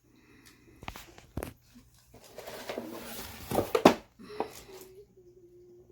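Plastic packaging of a foam slip-and-slide rustling and crinkling as it is handled and spread out, with a couple of sharp knocks early and a louder rustle about four seconds in.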